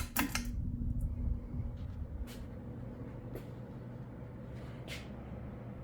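Litex Lexington ceiling fan switched to high speed: a quick cluster of pull-chain switch clicks at the start, then the motor's steady hum and the rush of air from the blades, with a few light ticks now and then.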